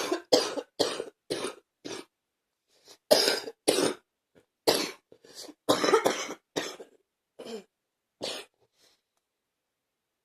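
A person coughing in fits, a persistent cough: five quick coughs in a row, then after a short pause several more bursts of coughing, dying away about nine seconds in.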